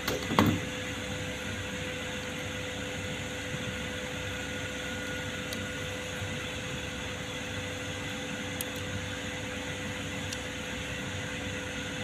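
Steady background machine hum with a constant tone. A short knock comes just after the start, and a few faint clicks follow as the plastic casing of a car door lock actuator is handled.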